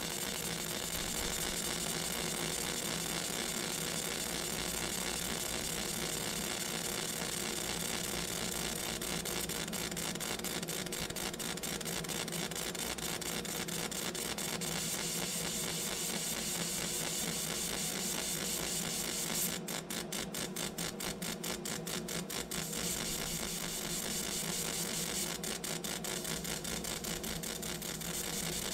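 Laser engraver at work marking a silver coin: a steady machine whir and hiss with a fine rapid buzz as the beam scans the metal, turning into a quick fluttering pulse for a few seconds about two-thirds of the way through.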